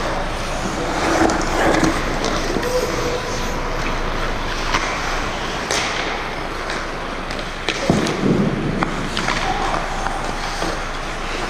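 Ice hockey skates scraping and carving on the ice, with sharp clacks of sticks and puck striking throughout, the loudest knock about eight seconds in.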